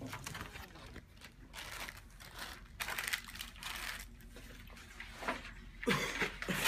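Plastic accessory bags rustling and crinkling as they are handled over a cardboard box, with a few louder bumps near the end.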